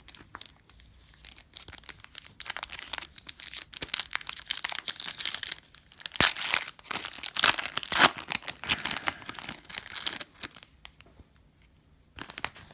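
Foil trading-card pack wrapper being torn open and crinkled: a dense, high-pitched crackling rustle that starts about two seconds in and dies away near the end.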